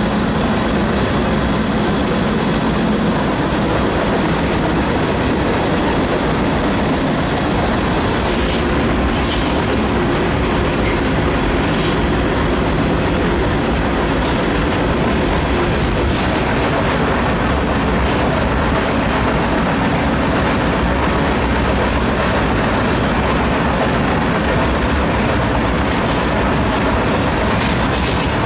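Freight car wheels rolling on the rails at speed, heard from the car's end platform right above the wheels: a steady, loud running noise with no break.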